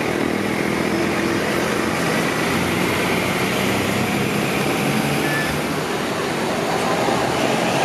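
A large diesel intercity coach driving past close by: engine running with tyre noise on the road.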